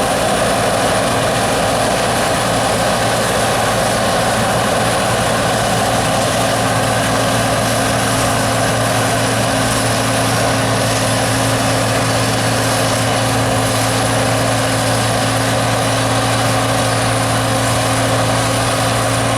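John Deere 9760 STS combine harvester running steadily while combining spring barley: a constant engine drone under the whir of the threshing and separating machinery, with a thin high whine.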